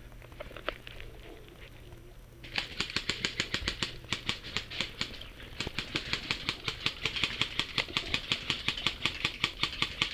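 Airsoft guns firing in rapid full-auto strings: a quick, even clatter of shots, several a second, that starts about two and a half seconds in and runs on with a brief lull around the middle.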